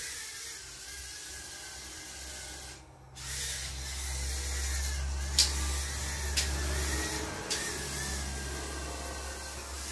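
Eachine E010 micro quadcopter's coreless brushed motors and propellers whining as it flies, the pitch wavering a little as the throttle changes. The sound drops out briefly about three seconds in, and a few sharp clicks come near the middle.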